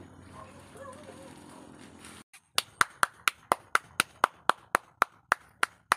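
Fast, evenly spaced hand claps, about four a second, starting a little over two seconds in after faint outdoor background.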